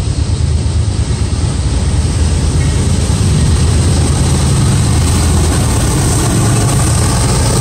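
Norfolk Southern freight train's diesel locomotives approaching, a heavy low engine rumble that grows louder about three seconds in.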